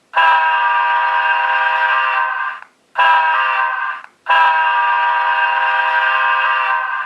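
Recorded Nathan K3LAR2 three-chime locomotive air horn, reproduced by a model-train sound decoder through a small locomotive speaker. It sounds three blasts: a long one of about two and a half seconds, a short one of about a second, then another long one.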